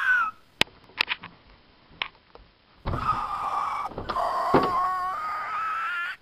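A few sharp clicks and knocks, then a door creaking slowly open for about three seconds, the creak rising in pitch near the end, with a knock partway through.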